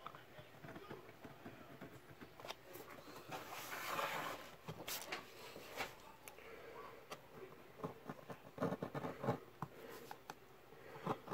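Faint scratching and scraping of a lino block being carved and picked at by hand with a small cutting tool, with scattered light clicks. A longer scrape comes about four seconds in, and a quick run of scrapes near the end.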